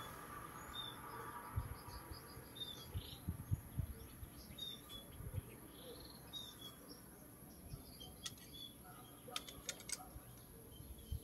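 Faint small birds chirping in short calls, over soft knocks and a few clicks as a circuit board and tools are handled on a workbench.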